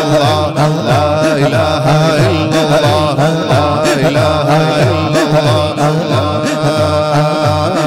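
A man's voice chanting a devotional hamd into a microphone, with long held, ornamented notes over a low pulsing beat about twice a second.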